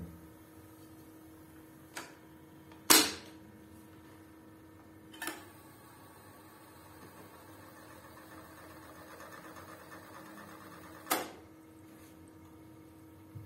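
Four sharp mechanical clicks as the UHER Royal de Luxe reel-to-reel tape recorder's controls are switched by hand, the loudest about three seconds in, over a faint steady hum.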